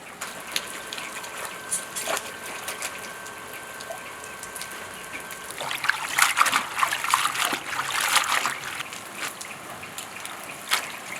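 Water trickling and splashing, loudest for a few seconds past the middle, with scattered light clicks and knocks.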